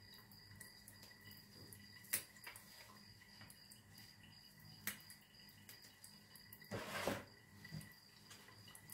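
Sirken greens being picked over by hand to remove the tough stems: a few soft clicks and a brief rustle about seven seconds in, over a faint steady high-pitched tone.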